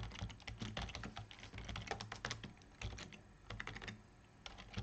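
Typing on a computer keyboard: a run of quick, irregular key clicks, with a short lull about three seconds in before a few more keystrokes.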